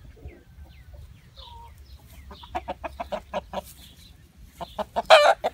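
Chickens clucking: a few faint high chirps, then a rapid run of short clucks about two to three and a half seconds in, and a louder, longer call near the end.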